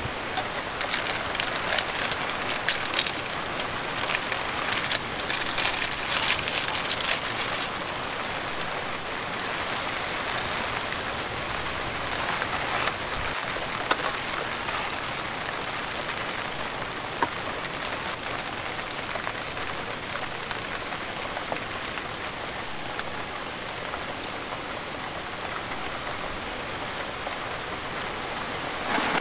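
Light rain falling steadily on a Decathlon Quechua Arpenaz Family 4 tent, heard from inside as an even patter. There is a louder stretch of fine crackling in the first several seconds and a few single ticks later.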